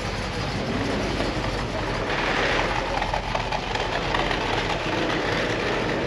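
Cars driving past with their engines running, over a steady outdoor din, growing a little brighter about two seconds in.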